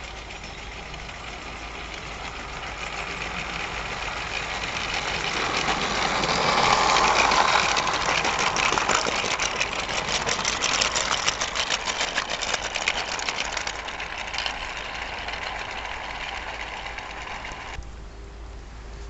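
A radio-controlled 16 mm-scale Tin Turtle model locomotive hauling a train of small wagons passes close by. Its drive runs steadily and the wheels rattle and click rapidly over the track, rising to a peak and then fading, with a sudden drop near the end.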